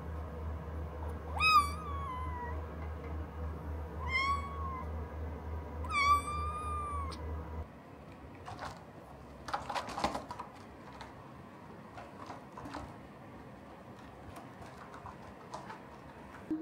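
Minuet kitten giving three loud, insistent meows a couple of seconds apart, each rising and then falling away, over a steady low hum. After the hum stops, a cluster of light clicks and scratches comes about ten seconds in, with scattered ticks after it.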